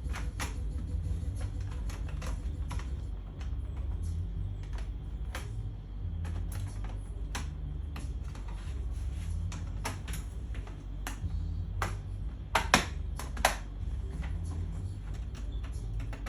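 Scattered small clicks and taps of hands working on a laptop's plastic case as its bottom cover is refitted, over a steady low hum. Two sharper, louder clicks come about three quarters of the way through.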